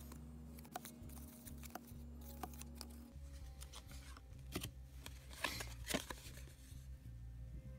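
Paper baseball cards being handled and flipped between the fingers: short dry cardboard rustles and clicks, the loudest around five to six seconds in. Quiet background music with a low bass line plays underneath.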